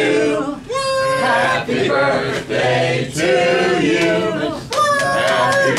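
Unaccompanied voices singing a birthday song, with long held notes.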